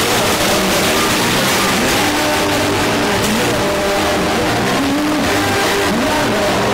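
Hockey rink crowd noise after a goal: many voices cheering and shouting together at a steady, loud level.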